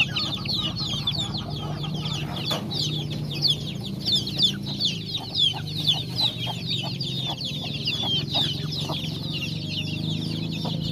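A flock of six-week-old village chicks peeping continuously: many short, high, falling cheeps overlapping one another. A steady low hum runs underneath.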